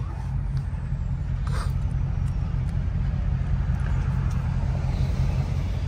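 2020 Dodge Challenger Scat Pack's 392 HEMI V8 running at a steady cruise, a low, even drone with no revving, fitted with its new aftermarket exhaust.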